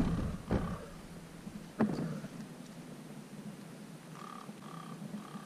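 Two sharp knocks near the start, then three short, high whimpers from a six-week-old Airedale Terrier puppy in quick succession near the end.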